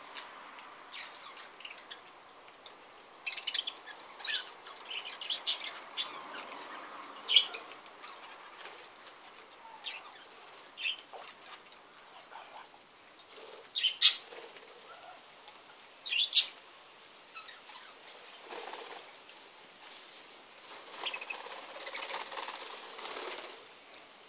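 Budgerigars feeding from outstretched hands: short chirps and brief fluttering of wings as birds land and shift about, scattered irregularly, the loudest about seven, fourteen and sixteen seconds in.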